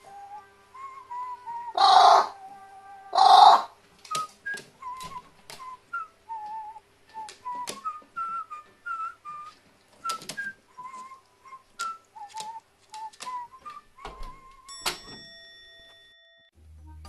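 A whistled background-music tune with scattered short clicks and taps. Two loud, harsh noises come about two and three and a half seconds in, and a ringing chime sounds near the end.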